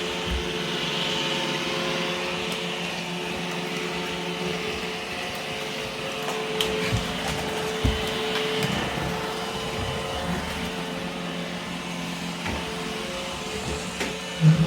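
Roomba E5 robot vacuum running, a steady motor and brush hum with several held tones, broken by a few brief knocks, the loudest near the end.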